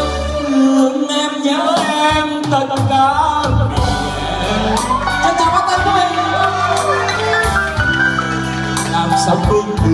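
Live band music: a saxophone plays a slow, gliding melody over electronic keyboard accompaniment.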